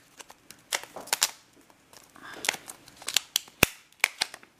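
Clear plastic coin flip handled and pulled open by fingers, giving a string of sharp plastic clicks and crackles, the loudest about three and a half seconds in.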